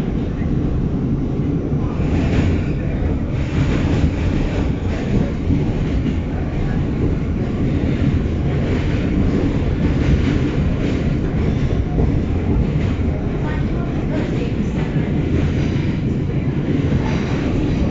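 Inside a New York City subway car running between stations: a steady, loud low rumble of the train's wheels on the rails, with irregular clatter.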